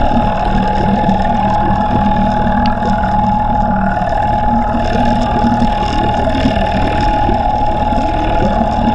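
Outboard motor running with its propeller turning, heard underwater from just behind the lower unit: a steady high whine over a low hum.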